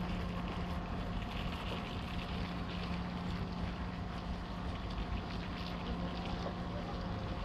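Steady drone of a standing diesel passenger train idling, with a constant low hum.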